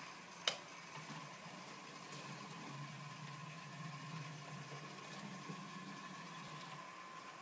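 HO-scale model train running on the layout's track, giving a faint steady low hum, with one sharp click about half a second in.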